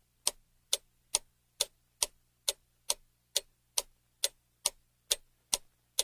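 Clock-ticking countdown sound effect: a steady, even tick a little over twice a second, the timer for guessing the song.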